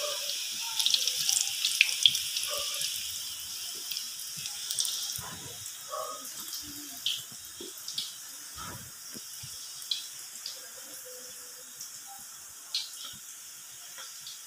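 Marinated chicken liver pieces deep-frying in hot oil: a steady sizzling hiss with crackling, louder over the first five seconds, then settling to a softer sizzle broken by a few sharp pops.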